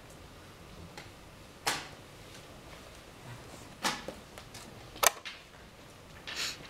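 A few sharp wooden clicks and knocks of chess pieces being set down on the board and a chess clock's button being pressed, about four in all, the loudest about five seconds in.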